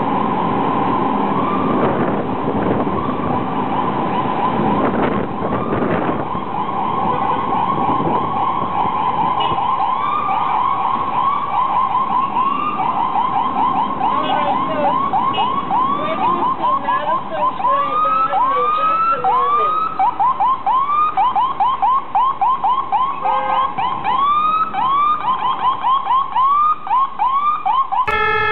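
Ambulance siren on a yelp: quick rising-and-falling sweeps repeating several times a second over traffic noise, with a few slower, wider sweeps past the middle.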